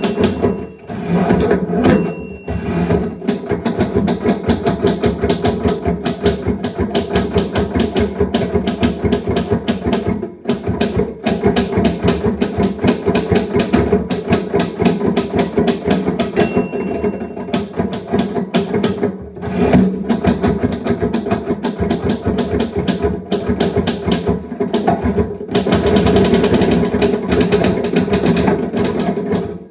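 Manual typewriter typing fast, its keys clacking many times a second with a few short pauses. Its margin bell rings twice, about 2 seconds and 16 seconds in, signalling the end of a line.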